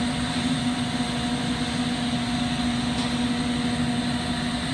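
Steady roar of a lampworking glass torch flame, with a constant low hum under it.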